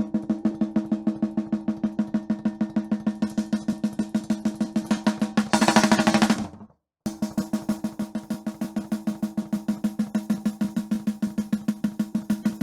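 Soloed, close-miked live snare drum track from a metal recording played back, gated and evened out so every stroke is about the same level. Fast, even blast-beat hits at about seven a second, each with a short ringing tone. A louder, brighter stretch comes about halfway through, then playback stops for a moment and starts again.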